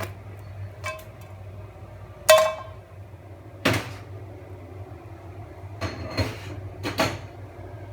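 Sharp clinks and knocks of cookware as the pizza is moved out of the frying pan: about six separate hits, the loudest one about two seconds in with a short metallic ring.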